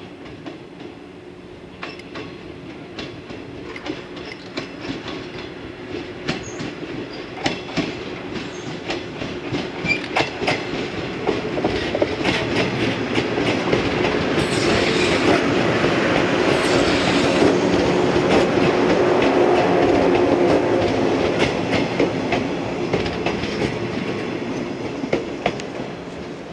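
Electric multiple-unit train, JR West Okayama depot set B13, approaching and passing: wheels click over the rail joints with a running hum. It grows steadily louder, is loudest about halfway through as the cars go by, and fades near the end.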